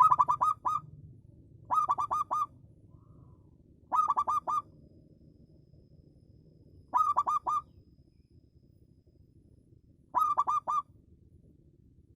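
Zebra dove (perkutut) cooing: five short phrases of four or five quick, clipped notes each, repeated every two to three seconds.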